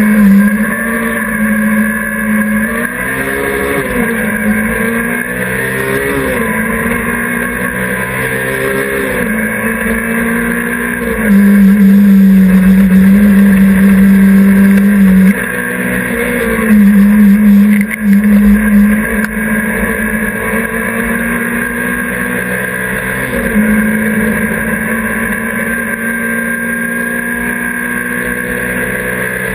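Race car's engine heard from inside the cabin during a hillclimb run, pulling hard with the revs rising and dropping through gear changes. It is loudest for about four seconds near the middle, and again briefly soon after.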